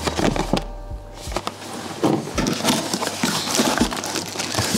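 Hands rummaging in a cardboard parts box: crackling and rustling of packing with scrapes and light knocks against the cardboard.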